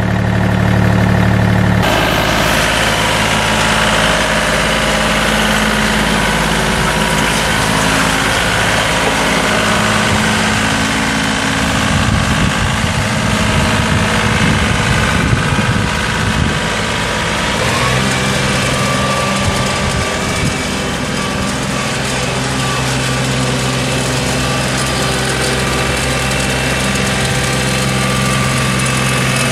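A John Deere 2032R compact tractor's Yanmar three-cylinder diesel engine running steadily near idle. Its tone shifts about two seconds in and again about eighteen seconds in.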